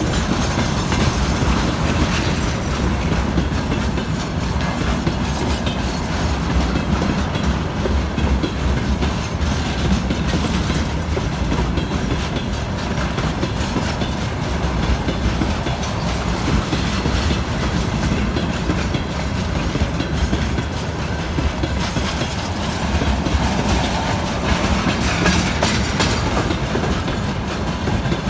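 Freight train wagons rolling past at steady speed, their wheels clacking over the rail joints with a continuous rumble.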